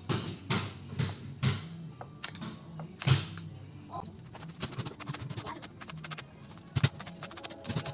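Chef's knife chopping spring onions on a cutting board: separate sharp knocks about twice a second at first, then quicker, lighter chopping in the second half.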